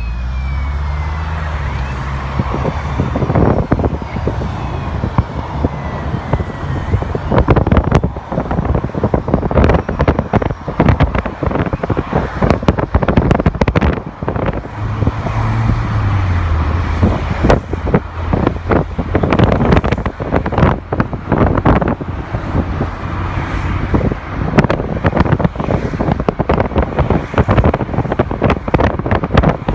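Road noise of a moving car heard from inside it: tyre and engine hum underneath, with frequent gusts of wind buffeting the microphone. The low hum changes pitch briefly about halfway through.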